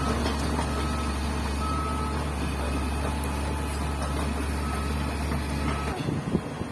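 A heavy construction machine's warning beeper sounding a short high beep over and over, roughly once a second, over the machine's steady diesel engine drone. The engine drone cuts off abruptly near the end.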